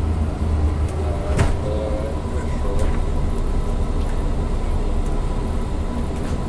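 Steady low rumble of a bus's engine and running gear heard from inside the moving bus, with a sharp knock about a second and a half in.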